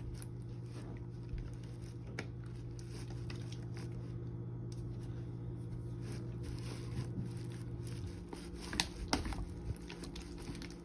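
Faint sticky squishing and small clicks of homemade glue slime being worked by hand, with a few sharper clicks about nine seconds in. A steady low hum runs underneath and stops about eight seconds in.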